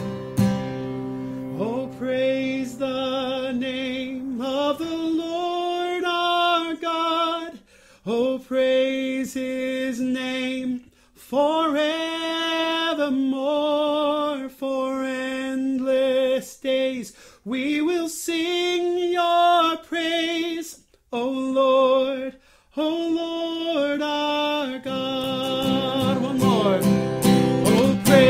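Worship song sung with acoustic guitar accompaniment: a voice holds long notes with vibrato, line by line with short breaks between phrases, and the guitar strumming comes forward near the end.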